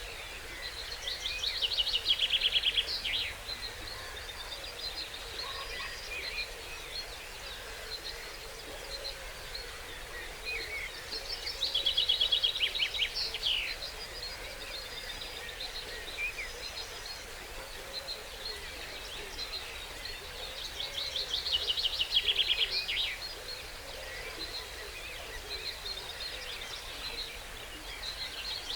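Dawn chorus of songbirds, led by one bird repeating a short, fast trilled song phrase about every ten seconds, three times, with fainter calls from other birds in between.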